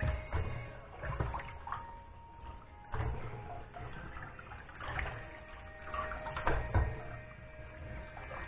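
Hands sloshing and rinsing small cleaned fish in a stainless steel sink full of water. Irregular splashes, with several sharper knocks as fish and hands hit the sink.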